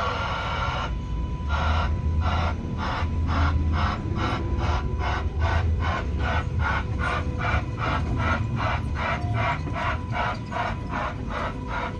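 Miniature railroad crossing alarm ringing its repeating electronic "kan-kan", about two and a half strikes a second, starting about a second in after a steady tone cuts off. A low rumble runs underneath.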